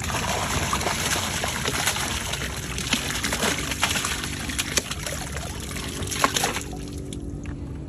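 Water and climbing perch poured from a plastic bucket into a river, the stream splashing on the surface with scattered sharper splashes as the fish drop in. The pour dies down about six and a half seconds in.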